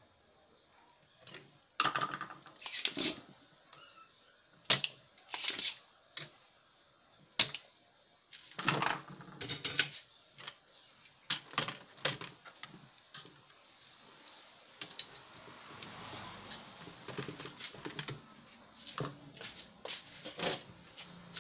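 Irregular clicks, taps and knocks of a soldering iron, a hand tool and a circuit board being handled while a resistor is desoldered from a CRT TV board.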